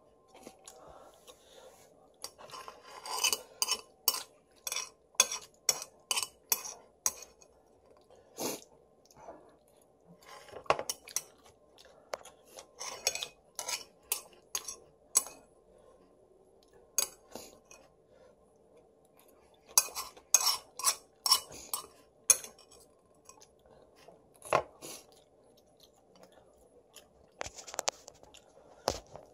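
Chopsticks clicking and scraping against a ceramic plate while someone eats noodles, in scattered clusters of sharp clinks with quieter chewing between them.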